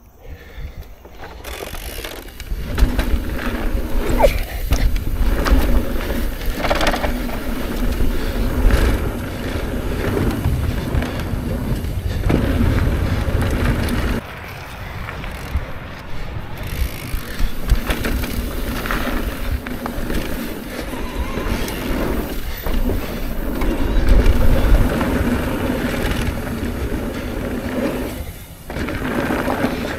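Trek Rail electric mountain bike riding a dirt trail: tyres rolling and the bike rattling over bumps, with wind rumbling on the microphone. It starts suddenly about a second and a half in.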